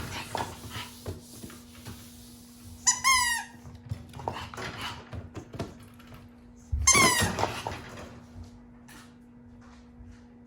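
Japanese Chin puppy giving two short, high-pitched whines about three and seven seconds in, each a quick run of wavering squeaky notes, with small taps and rustles between them.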